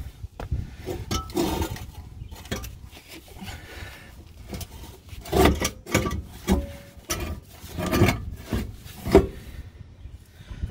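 Jeep ZJ Grand Cherokee's steel exhaust pipe and muffler being pushed and twisted together by hand: irregular scraping and knocking of metal on metal, with several sharper knocks in the second half.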